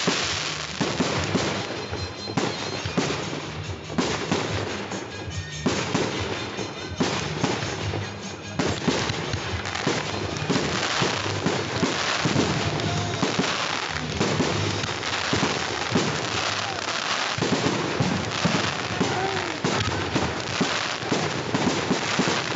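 Fireworks display: aerial shells bursting in quick succession, a dense unbroken run of bangs and crackle.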